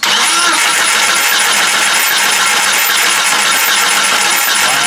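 Jeep TJ's 4.0 inline-six being turned over with the valve cover off, a loud steady cranking noise that starts abruptly. It is being cranked to watch a rocker on a cylinder whose intake valve is not opening, which the mechanic puts down to a wiped cam lobe and lifter.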